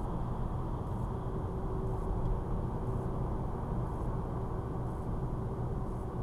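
Steady low road and engine rumble inside a moving car, with a faint steady hum coming in about a second in.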